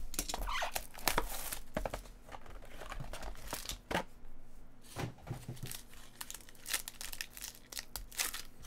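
A foil-wrapped trading-card pack being handled and torn open: irregular crinkling, rustling and tearing of foil, with scattered sharp ticks from the cardboard box being opened.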